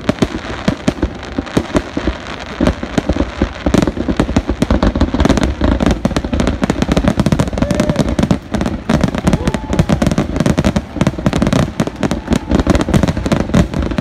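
Grand finale of an aerial fireworks display: a rapid, continuous barrage of shell bursts, many loud bangs a second overlapping into a heavy rumble.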